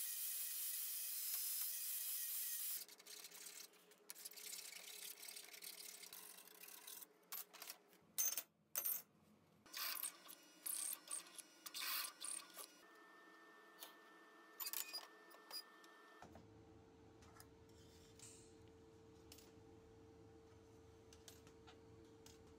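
Stainless-steel workshop sounds: a loud burst of machine cutting noise at the start, then sharp clinks and knocks of metal parts being handled and drilled on a drill press. About two-thirds of the way in the noise gives way to a steady hum with a thin tone during TIG tack welding.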